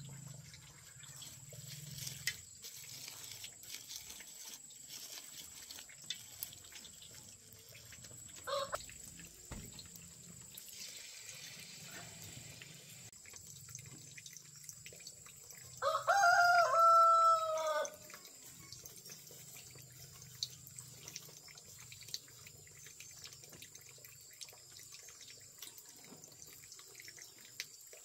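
A rooster crowing once, about two seconds long, a little past the middle. A shorter, fainter call comes around eight seconds in, over faint scattered clicks.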